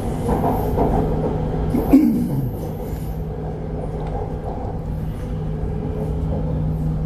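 Bangkok MRT Purple Line electric train running, heard from inside the carriage: a steady motor hum over the rumble of the wheels, with a short knock about two seconds in.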